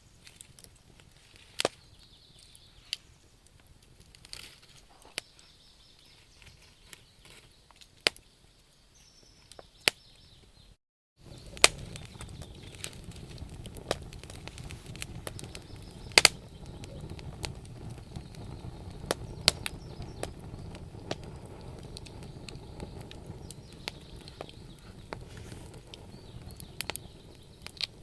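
Wood fire crackling: scattered sharp pops and snaps. About 11 seconds in, the sound cuts out for an instant and comes back louder, with a steady low noise of burning flames under the pops.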